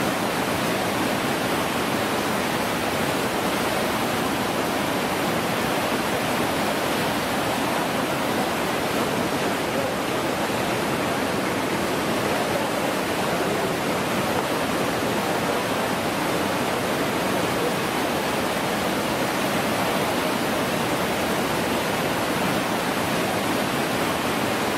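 Whitewater rapids of a canoe slalom course, rushing steadily.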